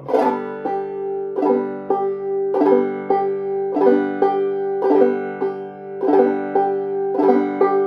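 Banjo played clawhammer style on open strings: the bum-ditty pattern of a strike, a brush across the strings and a thumb pop on the fifth string, repeating at a steady pace, with a strong accent about every second and a bit.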